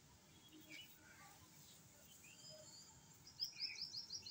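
Small birds chirping in the background over a quiet room. A quick run of five or six high chirps comes about three and a half seconds in.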